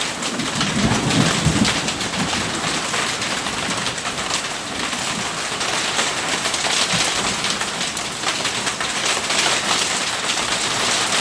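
Heavy rain pouring down steadily in a thunderstorm, an even hiss of rain hitting the deck and surroundings.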